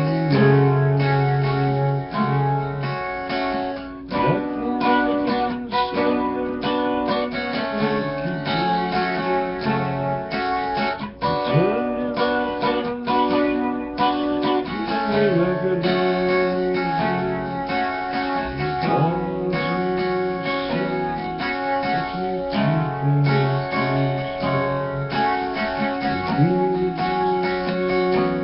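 Instrumental music led by guitar, held chords changing every couple of seconds, with several brief swooping tones over them.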